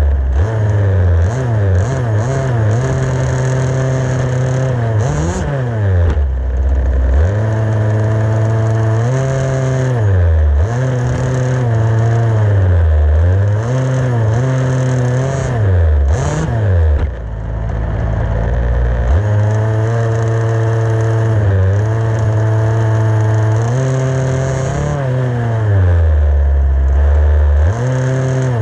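Onboard sound of an HPI Baja 5B 1/5-scale RC buggy's small two-stroke gas engine, revving up and easing off again and again as it drives. It drops to a low idle for about two seconds roughly two-thirds of the way through.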